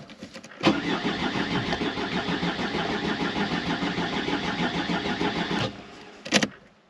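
Mercedes 190D diesel engine turned over by its starter motor for about five seconds without catching, then the cranking stops. It will not fire because the engine is starved of fuel by a wrongly fitted fuel filter.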